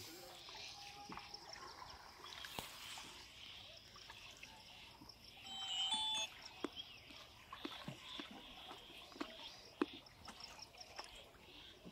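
Faint outdoor ambience over floodwater: scattered small clicks and knocks, and a short high-pitched call about six seconds in.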